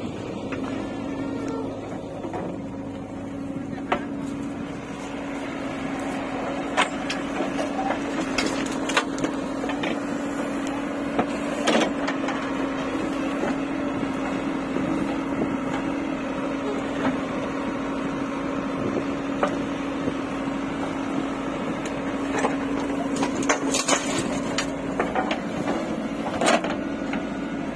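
JCB 3DX backhoe loader digging earth: its diesel engine runs with a steady hum while the bucket scrapes through the soil, with scattered sharp knocks and crunches of clods and stones.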